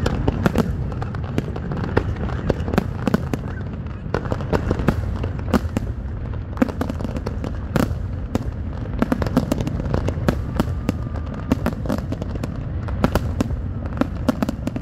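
Aerial fireworks display: a dense, irregular barrage of shell bursts and bangs, several a second, over a continuous low rumble.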